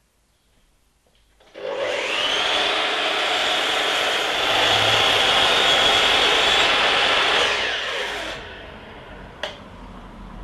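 Makita LS1216L sliding compound mitre saw's motor starting with a rising whine, its 305 mm blade cutting through a long wooden board, then the motor winding down. A single sharp click about nine seconds in.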